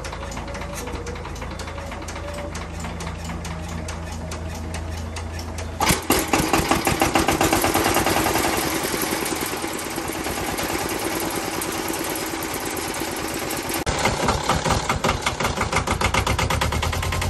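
Kubota KNDR90 single-cylinder diesel engine on a vintage riding cultivator running at a steady idle with an even clatter. About six seconds in it suddenly speeds up and runs much louder with fast knocking, and surges again near the end.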